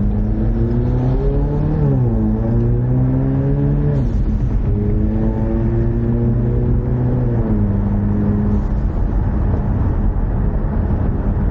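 Ford Mustang EcoBoost's turbocharged four-cylinder engine accelerating through the gears. Its pitch climbs and then drops at each upshift, about two seconds in, about four seconds in and about seven and a half seconds in. Near the end it eases off, leaving steady road and tyre noise.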